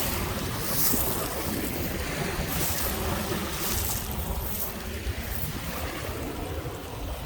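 Lake Michigan waves washing onto the beach, their hiss swelling a few times, with wind rumbling on the microphone.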